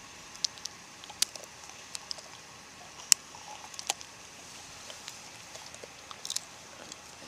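A dog crunching food it has picked up off gravel: irregular short, sharp crunches and clicks, the loudest about three seconds in.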